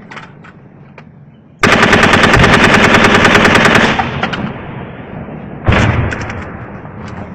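Automatic rifle fired in one long burst of about two seconds, roughly ten shots a second, followed a couple of seconds later by a single further shot.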